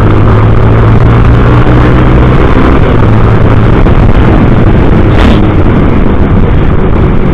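Honda CB650's inline-four engine running loud while the motorcycle rides along, a steady exhaust note whose pitch shifts briefly about three seconds in. A short sharp noise comes through about five seconds in.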